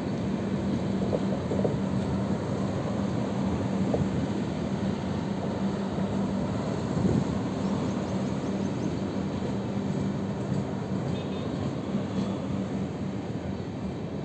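Passenger train coaches running through a station at speed without stopping: a steady rumble of wheels on rail with a low hum and a few faint clicks, getting slowly quieter near the end.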